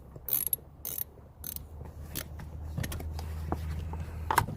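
A ratchet wrench clicking a few times in short strokes, then a low steady hum with scattered small clicks and one sharp click near the end.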